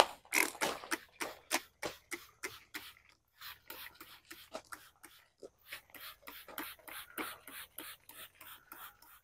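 Hand trigger spray bottle squirting Ospho, a phosphoric-acid metal prep, onto sheet metal in quick repeated pumps, about four or five squirts a second.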